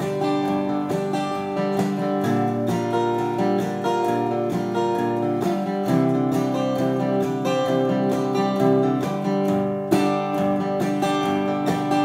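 Acoustic guitar strummed in a steady rhythm during an instrumental passage of a folk ballad, with no singing.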